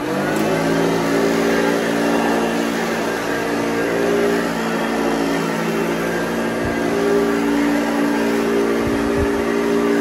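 Hoover Junior Exclusive U1206 upright vacuum cleaner running on carpet: a steady motor hum with a rush of air, settling to speed in the first moment after being switched on. Two low bumps come in the second half.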